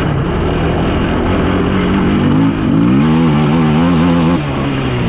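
Off-road vehicle engine under way over rough ground, its pitch rising about halfway through as the throttle opens, holding with an unsteady waver, then dropping off near the end. Steady rushing wind noise runs underneath.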